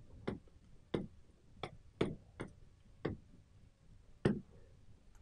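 Stylus tip tapping on an interactive display's screen while writing, about seven short, irregular ticks.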